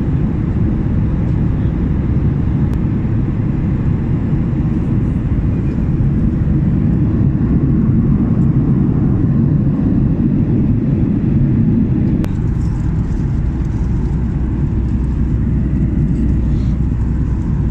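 Steady low rumble of an airliner's engines and airflow heard from inside the passenger cabin, with a faint click a little past the middle.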